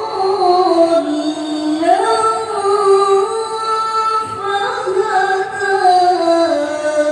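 A single voice in melodic Quranic recitation (tilawah), drawing out long held, ornamented notes that step down and back up in pitch several times.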